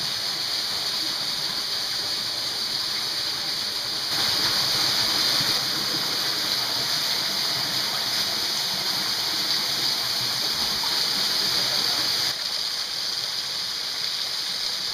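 Waterfall in a rock canyon, a steady rush of falling water. It jumps louder about four seconds in and drops back suddenly about twelve seconds in.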